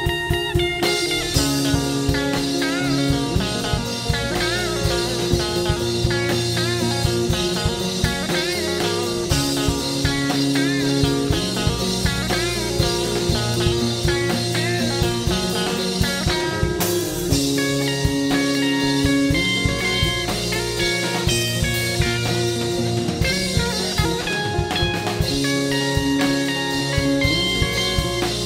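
Rock band playing an instrumental passage with no singing: electric guitars, bass guitar and drum kit. The lead guitar plays bent, wavering notes over a steady drum beat.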